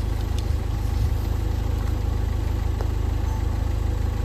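A stopped vehicle's engine idling steadily with an even low throb.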